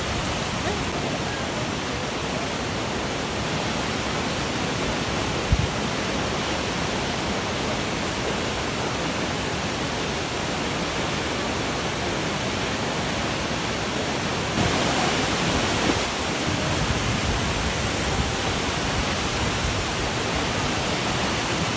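Nachi Falls, a tall waterfall, pouring down in a steady, loud rush of falling water, growing slightly louder about two-thirds of the way through, with a single small knock early on.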